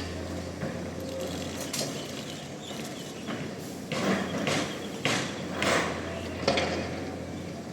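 Construction machinery with a steady low engine hum that drops away mid-way and returns near the end, and a handful of sharp metallic knocks and clanks in the second half.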